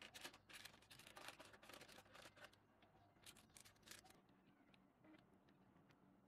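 Faint scraping and rustling strokes of a kitchen utensil working cocoa and flour in a mixing bowl, a quick run of strokes in the first couple of seconds, then a few softer ones and light ticks.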